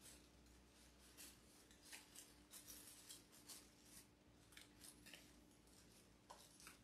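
Faint, scattered rustling of artificial flower stems and fabric leaves being handled and gathered into a bundle by hand, over a low steady hum.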